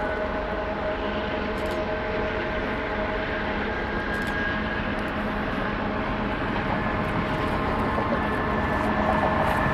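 Union Pacific freight train with diesel locomotives running by: a steady drone with several held tones over a broad rumble, swelling slightly near the end.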